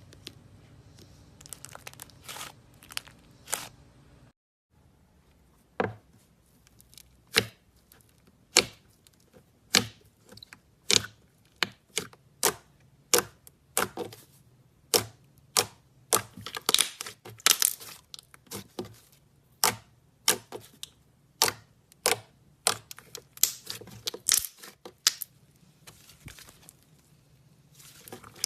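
Slime being squeezed and stretched, giving a string of sharp pops and crackles. They come about one a second at first, then faster and closer together.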